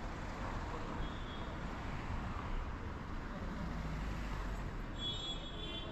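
City street ambience: road traffic going by as a steady rumble, with a brief high-pitched squeal near the end.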